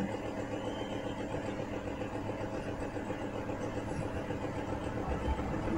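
Steady engine drone of an approaching CC204 diesel-electric locomotive hauling a passenger train, growing slightly louder near the end.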